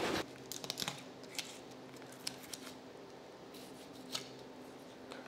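Skinning knife and hands working the hide off a hanging black bear carcass at the neck: a scatter of small sharp clicks and snips as the hide is cut and pulled, over a faint steady hum. A louder noise cuts off abruptly just as it starts.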